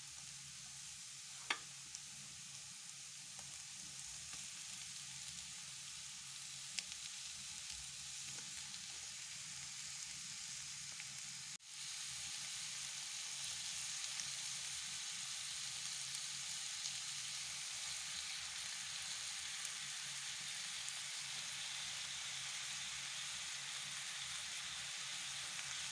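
Grated onion and ground-meat kefta sizzling in melted butter in a frying pan, a steady frying hiss. The sound breaks off for an instant about halfway through, and the sizzle is a little louder after it.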